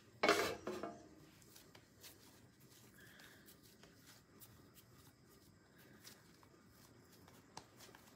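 Faint soft pats and light taps of hands pressing and shaping a stiff ball of cornmeal dough, with a short louder noise just after the start.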